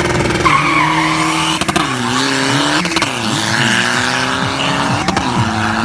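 Diesel pickup truck accelerating hard down a drag strip. The engine climbs in revs and drops sharply at each gear change, about two, three and five seconds in, and each shift comes with a sharp crack.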